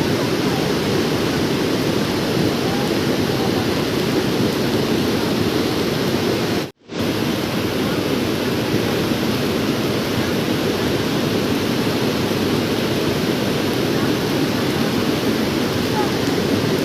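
Floodwater rushing: a loud, steady rush. It breaks off for a split second about seven seconds in, then carries on the same.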